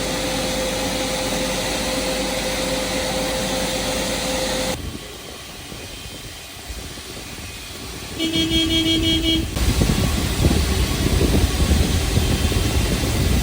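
Jet engine start noise with a ground air starter unit running: a steady rush with a steady whine, which drops away abruptly about five seconds in. About eight seconds in a short, horn-like tone sounds for just over a second, and a louder low rumble follows.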